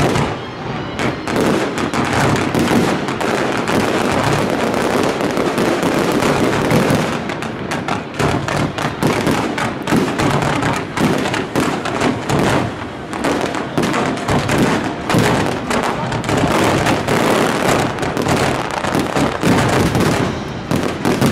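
Fireworks display going off in a dense barrage: rapid, overlapping bangs and crackles with no let-up, packed even tighter from about seven seconds in.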